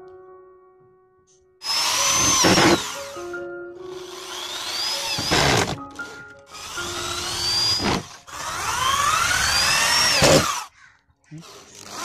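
Handheld power drill run four times, drilling into the plastic frame of an old TV casing; each run is a whine that rises in pitch and falls off when the trigger is released. Background music plays in the gaps.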